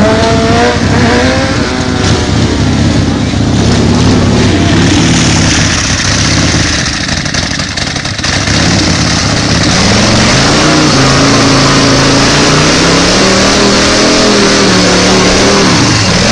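A motorcycle engine revs up, rising in pitch over the first couple of seconds. In the second half a home-built chopper's engine is held at high revs in a burnout, its rear tyre spinning against the asphalt.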